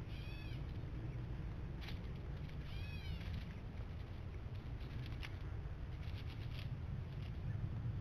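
Two short calls from a wild bird, about half a second and about three seconds in, each a quick cluster of arched notes, followed by a few faint clicks. A steady low rumble runs underneath.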